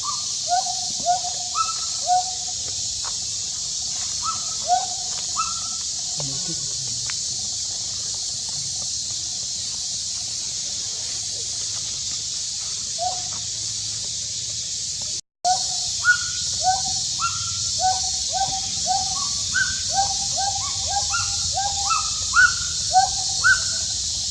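A monkey crying: short, high-pitched calls repeated over and over, coming faster, about two a second, in the second half, over a steady high hiss. The sound drops out for a moment about halfway through.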